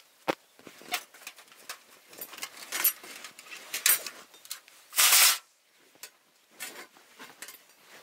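Hands rummaging in a canvas tote bag: fabric rustling and small clicks and knocks as camping gear is handled and pulled out, with one louder rustle about five seconds in.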